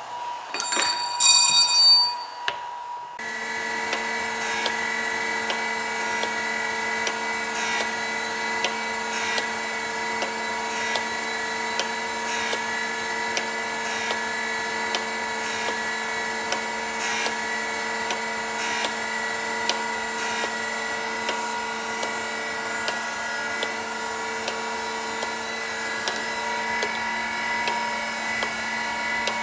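A few sharp metallic clinks with a ringing tone about a second in, then from about three seconds a surface grinder's wheel grinding the cutting edge of a steel shear blade: a steady machine hum with a grinding pass that swells about every second and a half as the table moves back and forth.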